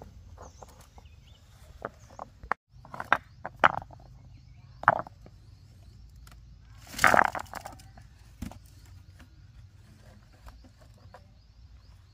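Irregular knocks and scrapes from outdoor hand work, a few sharp strikes between about two and five seconds in and a longer scrape about seven seconds in, with faint bird chirps in the background.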